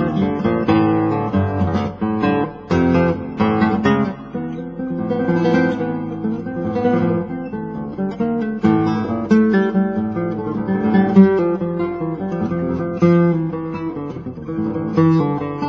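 Background music: acoustic guitar, strummed and plucked.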